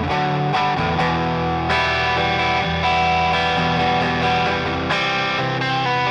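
Electric guitar played through a Catch 22 overdrive pedal, a Timmy-style overdrive: sustained chords, with new strums about 1.7 and 4.9 seconds in.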